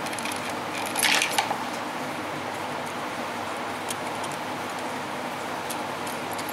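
Small metal and ceramic TIG torch parts handled by hand: a brief clatter about a second in, then a few light clicks, over a steady background hum and hiss.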